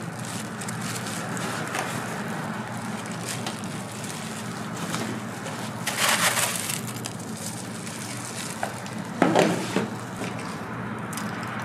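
Crepe toppings being added over a steady low hum. There are two short, loud noises, about six and nine seconds in. The second and louder one comes as a handful of cornflakes is crushed and scattered over the fruit.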